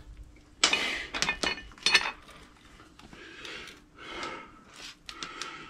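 Motorcycle drive chain being handled, its metal links clinking and rattling: a few sharp clinks in the first two seconds, then softer, scattered rattles.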